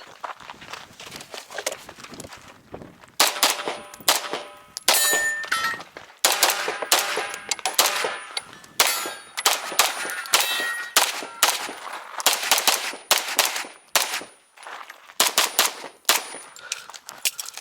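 A rapid string of pistol shots and ringing steel targets, dozens of sharp reports and clangs spread through the whole stretch, many leaving a metallic ring.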